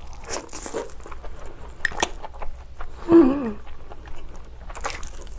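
A person slurping and chewing a mouthful of cold noodles in spicy red sauce, with wet mouth sounds and small clicks of chopsticks against a glass bowl. About three seconds in there is a short falling hum from the eater, the loudest sound, and a noisy slurp follows near the end.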